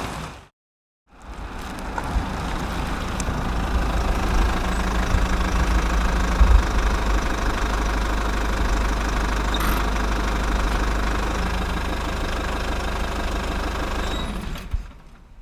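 An engine running steadily with a low rumble. It starts about a second in after a brief silence and fades out just before the end.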